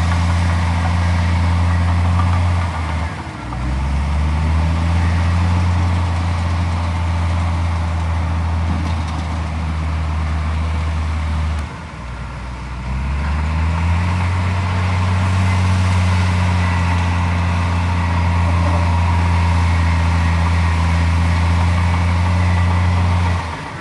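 Heavy diesel engine of earth-moving machinery running steadily. Its pitch and level drop briefly about three seconds in and again about twelve seconds in, each time climbing back up.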